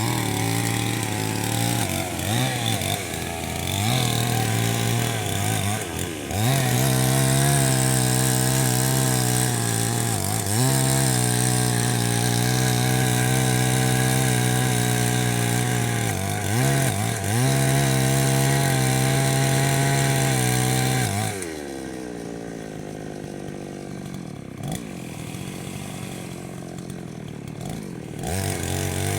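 Chainsaw cutting into a mango tree: the engine revs up and down at first, then runs at high throttle with brief dips in pitch as it takes load, drops to idle about two-thirds of the way through, and revs up again near the end.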